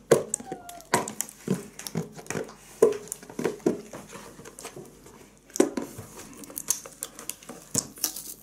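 Cardboard and plastic toy packaging being handled and pulled apart to free the toy: irregular clicks, knocks and crinkles, with a short squeak about half a second in.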